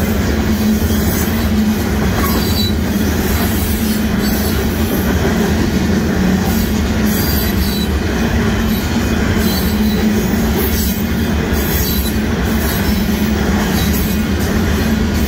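Union Pacific freight train's covered hopper cars rolling past close by: a steady loud noise of steel wheels running on the rails.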